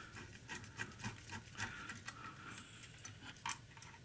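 Faint, irregular small clicks and ticks: a screwdriver working a small screw and metal parts being handled on a metal amplifier chassis.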